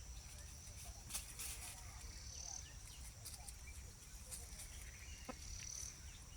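Faint rural ambience: an insect's steady high-pitched trill, swelling a little twice, with scattered soft bird chirps and a few light clicks.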